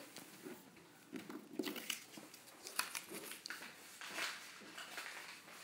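Faint rustling with a few light taps and clicks, the sounds of handling and moving about.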